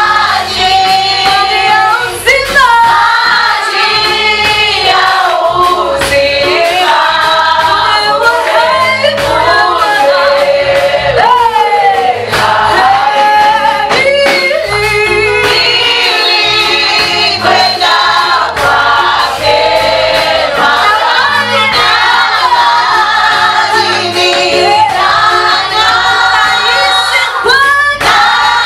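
A choir singing a Swahili hymn, mixed voices with women's voices prominent, close-harmony gospel style, over a low backing.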